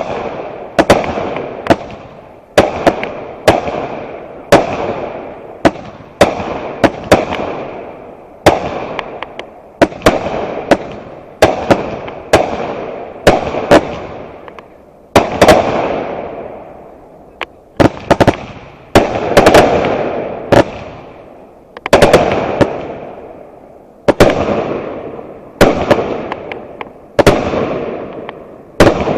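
Consumer fireworks going off in steady succession: a sharp bang about every one to two seconds, each trailing off over a second or so before the next.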